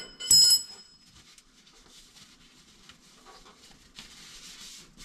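A single metallic clink with a short ring, a third of a second in, as a metal tool or part is knocked or set down; faint rustling and scraping follow.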